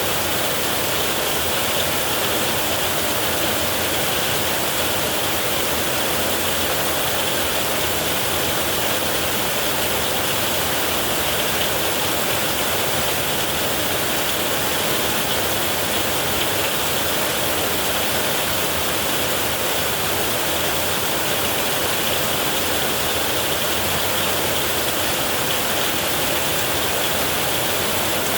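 Heavy rain falling steadily on a metal roof, an even unbroken hiss with no thunder.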